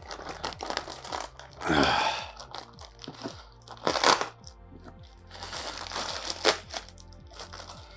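Clear plastic livestock shipping bag crinkling and rustling as it is handled, loudest about two, four and six and a half seconds in, over background music.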